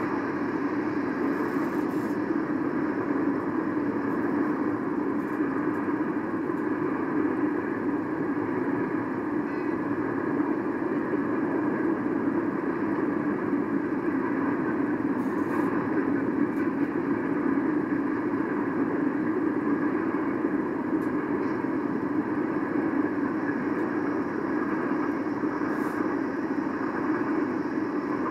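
Steady rumble of street traffic, with no change in level, played back through a speaker from a street webcam feed.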